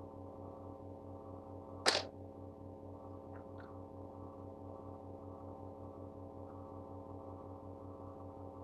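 Steady electrical mains hum. A single short, sharp noise comes about two seconds in, and two faint ticks follow about a second later.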